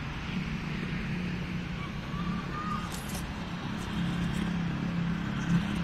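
Steady low engine hum, like a motor vehicle running nearby, over faint outdoor background noise.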